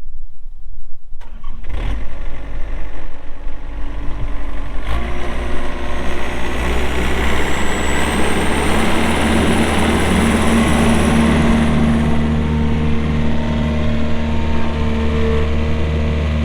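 Pre-emissions Yanmar diesel engine of a Takeuchi TL120 skid steer being cranked and catching about five seconds in, then running steadily, with a faint high whine that rises and then holds.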